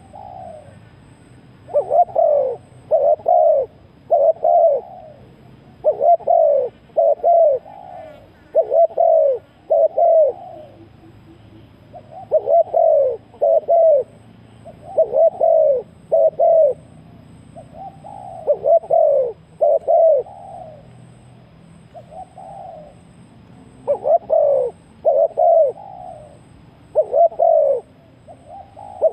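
Spotted dove cooing: low, arching coo notes in short phrases of two to four, repeated every few seconds.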